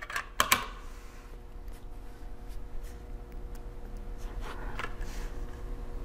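Light handling clicks and taps of a 2.5-inch SATA SSD being fitted into its laptop drive caddy: a few sharp clicks in the first half second, then scattered faint clicks over a low steady hum.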